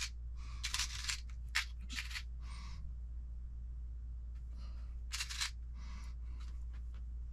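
Small titanium screws clinking and rattling against each other and the plastic as fingers sift through a compartment of a parts organizer, in a string of short bursts, over a steady low hum.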